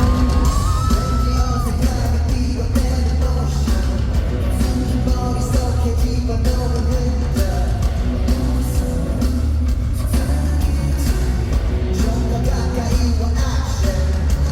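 Pop song played loud through concert speakers: a male singer's voice over a backing track with heavy bass and a steady drum beat.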